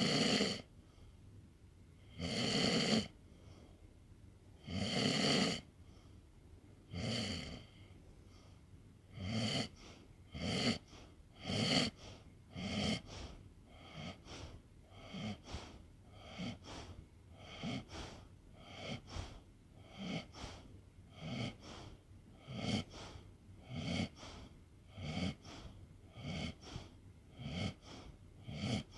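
A sleeping pet snoring: noisy breaths, long and loud about every two and a half seconds at first, then shorter and quicker at about one a second from roughly a third of the way in. The animal is near the end of its life.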